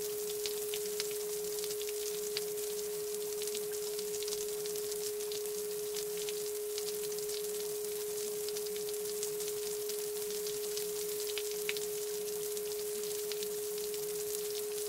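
A steady pure sine tone, a little below 500 Hz, held without change over a faint high hiss with scattered light ticks, like rain.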